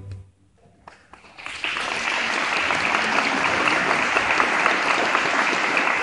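A string orchestra's final chord stops, followed by about a second and a half of near silence. Then the audience starts applauding and keeps up steady clapping.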